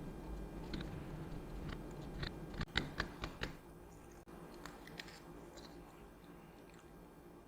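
Ground coffee being lightly tamped and pressed in a small filter basket with a spoon: a soft crunching and scraping, then a quick run of small clicks and taps about three seconds in, and a few lighter clicks a little later.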